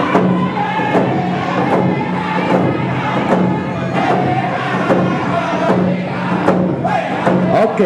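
Round dance singers beating hand drums in a steady beat and singing together, over the chatter of a crowded hall.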